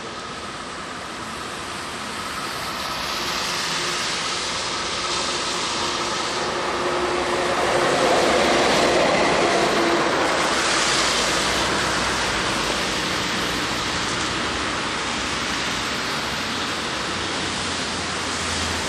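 Gotha T2-62 tramcar running on its rails and passing close by, its running noise swelling to its loudest about eight to ten seconds in, over the hiss of car traffic on a wet road.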